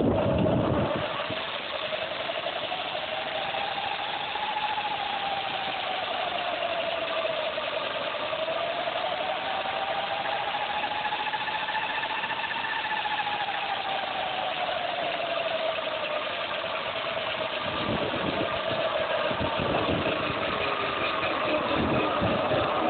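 36-volt DC electric motor spinning the dirt bike's raised rear wheel through a belt drive: a steady whine with a rushing hiss that climbs, dips, climbs to its highest about halfway through, then falls and holds at a lower speed.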